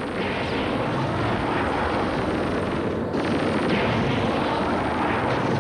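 Cartoon sound effect of a dragon's energy beams firing: a steady, dense rumbling blast with a brief dip about three seconds in.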